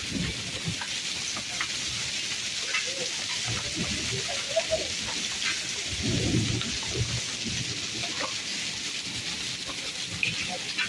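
Heavy rain mixed with small hail pellets pattering onto wet concrete, a steady hiss dotted with sharp little ticks of pellets striking. A low rumble comes about six seconds in.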